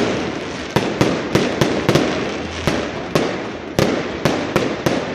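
New Year's fireworks and firecrackers going off all around: sharp bangs about three a second at uneven spacing, over a continuous din of more distant bangs and crackling.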